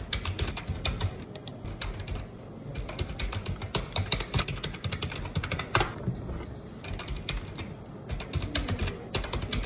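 Typing on a computer keyboard: a steady run of irregular key clicks, with one sharper keystroke about six seconds in.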